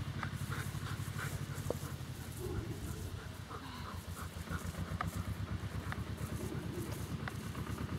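A German shepherd panting in quick, short breaths, over a low, steady, fast throbbing.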